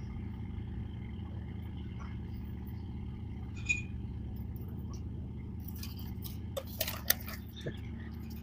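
A machine hums steadily underneath while small metal parts of a clutch booster piston are handled, with light clicks. From about two-thirds of the way in, a plastic packet of replacement seals crinkles in a run of sharp crackles.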